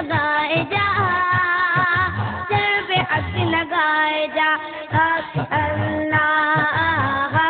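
A child singing a naat, an Islamic devotional song, in long wavering held notes over a low, evenly repeating beat.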